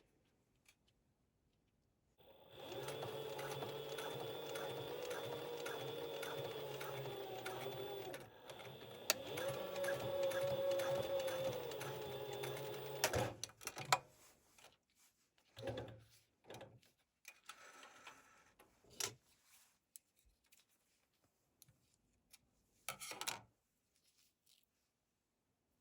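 Sewing machine stitching in one steady run of about ten seconds, its speed shifting once midway, then stopping. Scattered short clicks and handling knocks follow.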